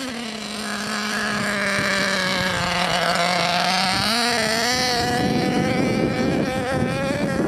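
Model engine of a large radio-controlled monster truck running as it drives over grass, growing louder in the first couple of seconds; its note holds fairly level, then rises and wavers about four seconds in before turning rougher.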